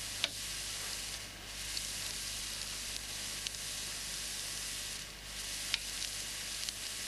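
Large petrol fire burning in a steel test container around a composite propane cylinder: a steady hissing rush with a few sharp crackles, one just after the start and a louder one near six seconds in.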